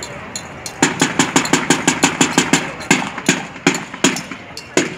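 Fast, even percussive beats start about a second in, at roughly six strikes a second. Near the halfway point they slow to about three a second.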